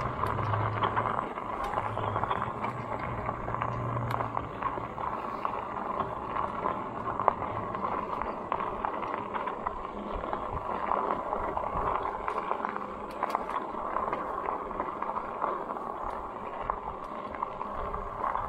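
Electric bike tyres rolling steadily over a crushed-stone rail trail, a continuous gritty hiss with scattered small clicks; a low hum sits under it for the first few seconds, then fades.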